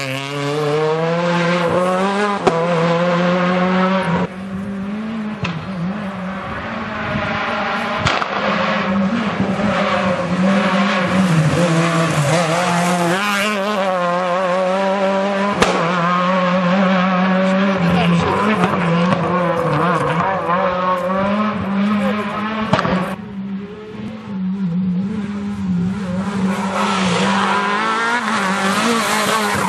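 Renault Clio R3 rally car's 2.0-litre four-cylinder engine revving hard on a gravel stage, its pitch climbing and dropping again and again with throttle and gear changes. The engine note dips briefly near the start and again about three-quarters of the way through, then comes back loud.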